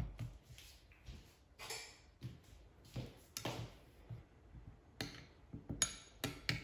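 Small spoon clicking and scraping against a ceramic bowl while turning baked cookie balls in runny apricot jam: a few light, scattered clicks with soft wet handling sounds between them.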